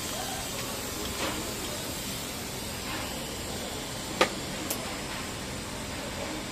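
Steady hiss of the TIG torch's argon gas flow, with a sharp click about four seconds in as the arc is struck, then the soft hiss of the TIG arc starting the root pass on stainless steel pipe.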